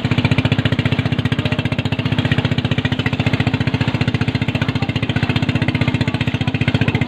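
Boat engine running steadily at speed, with a fast, even chugging beat.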